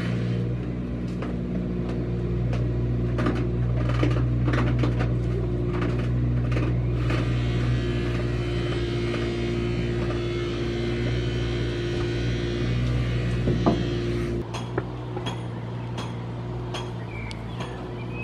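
A steady machine hum, with scattered clicks and knocks over it; the hum drops in level about fourteen seconds in.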